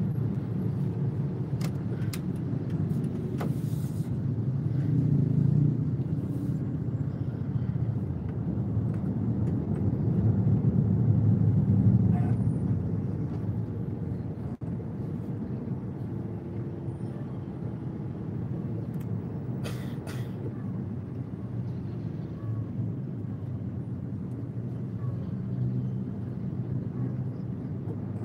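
Slow stop-and-go city traffic heard from inside a car: a steady low engine and road rumble that swells about five seconds in and again around ten to twelve seconds in, with a few short clicks and hisses.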